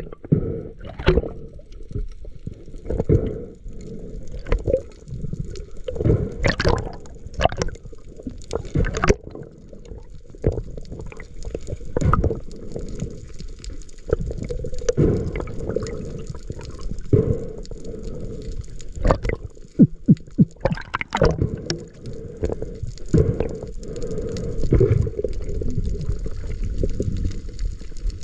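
Muffled underwater sound heard through a camera housing while swimming over a reef: water sloshing and gurgling, with many irregular knocks and clicks, a tight cluster of them about twenty seconds in.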